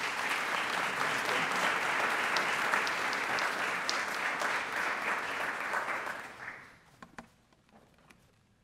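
Audience applauding, starting at once and dying away about six to seven seconds in, followed by a few faint knocks.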